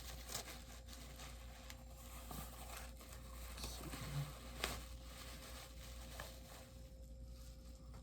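Faint rustling and light taps of a boxed bobblehead's packaging being handled as the box is slid out.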